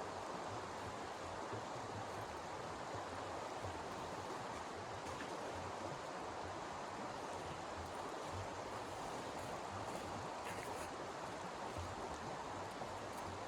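Steady rushing noise with no clear events, even in level throughout.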